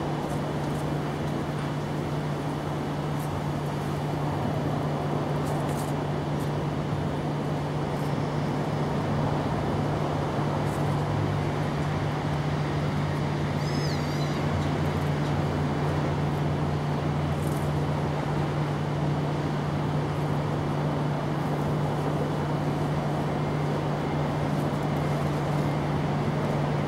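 A steady mechanical hum: a constant low drone under an even rushing noise that does not change. A brief high warbling chirp comes about fourteen seconds in.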